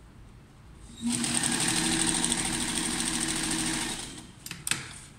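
Electric sewing machine stitching a seam in fabric: it starts about a second in, runs steadily for about three seconds, then slows to a stop, followed by a few short clicks.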